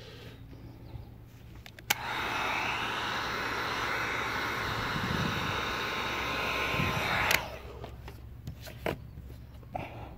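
Heat gun switched on with a click about two seconds in, blowing steadily for about five seconds to heat-shrink window tint film on the car's rear glass, then switched off with a click.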